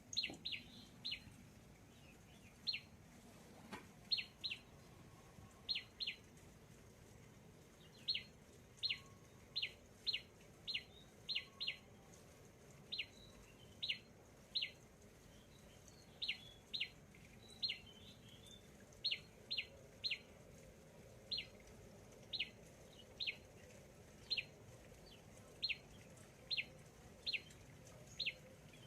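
A bird calling over and over with short, high, sharp chirps, each dropping quickly in pitch, singly or in quick pairs about once or twice a second.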